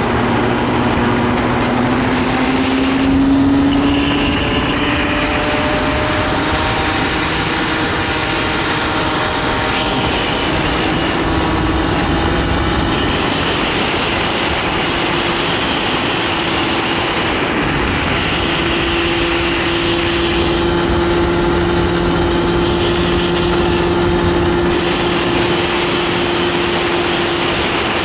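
Comer 50cc single-cylinder two-stroke kart engine at racing revs, heard from the driver's seat over a steady rush of wind and road noise. The engine note climbs in the first few seconds, then holds high with small rises and dips.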